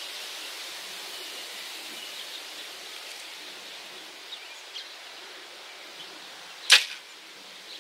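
Hoyt RX1 compound bow shot: one sharp crack of the string and limbs as the arrow is released, about two-thirds of the way in, over steady outdoor background noise.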